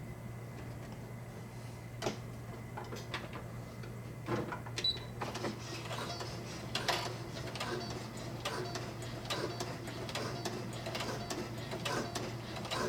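Brother SE-400 sewing machine stitching slowly through thick nylon strap webbing: a run of irregular needle clicks that begins about two seconds in and grows denser from about four seconds.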